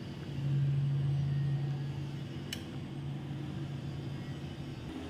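Steady low hum of a motor or appliance, swelling slightly about half a second in and then holding, with one faint click about two and a half seconds in.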